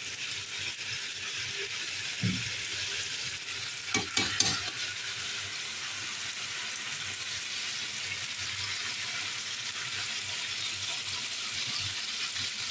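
Bone-in chops sizzling steadily as they fry in a pan. About two seconds in there is a single knock, and around four seconds a quick cluster of knocks, from a metal utensil against the pan as the meat is turned.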